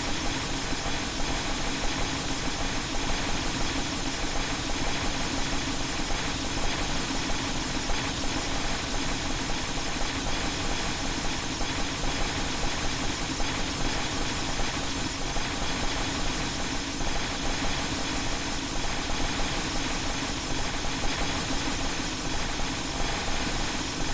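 A glass-breaking sound effect layered over itself many times at once, the shatters blurred into a loud, steady wall of noise with a constant fine crackle.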